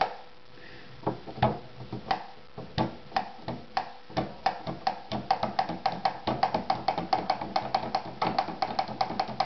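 Steel door hinge being flapped open and shut by hand, its leaf clicking down onto a ferrite magnet and the steel top of a coil, opening and closing the magnetic circuit of a small magnet-and-coil generator. The clicks come slowly at first, then speed up about halfway through to a steady clatter of three or four a second.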